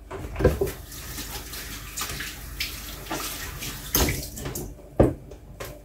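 Kitchen sink tap running as hands are rinsed under it, the water stopping about four and a half seconds in. A few sharp knocks at the sink, the loudest near the end.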